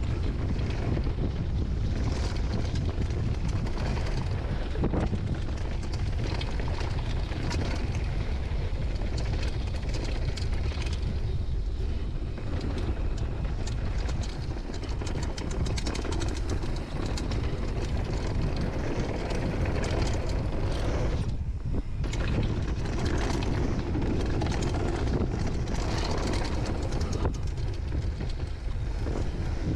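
Wind rushing over the camera microphone as a downhill mountain bike runs fast over a dry dirt and gravel trail, with tyre crunch and the bike rattling over the bumps. The noise eases briefly about two-thirds of the way in.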